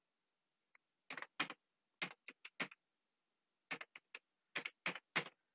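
Computer keyboard keystrokes as a name is typed: about a dozen separate key clicks in two short runs, with a pause of about a second between them.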